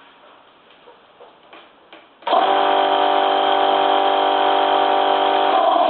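Electric two-piston air compressor switched on: its motor and pump start abruptly about two seconds in and run at a steady pitch for about three and a half seconds, then stop near the end. It is being test-run with a reworked check valve that the repairer still finds bad.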